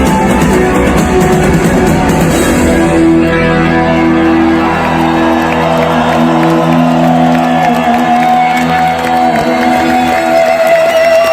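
Live rock band music with electric guitar. The full band plays for about three seconds, then stops, and long held chords and notes ring on; a steady higher tone joins near the end.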